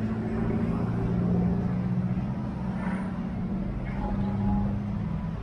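A vehicle engine idling steadily with a low, even hum.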